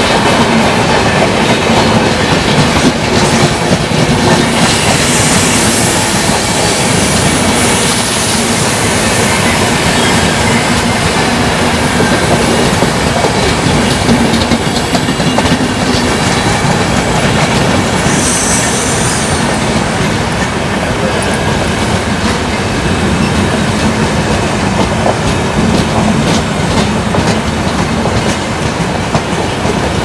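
Passenger train of LHB coaches rolling past, a steady loud wheel-on-rail rumble with clickety-clack over the rail joints. A brief high screech comes in a little past halfway.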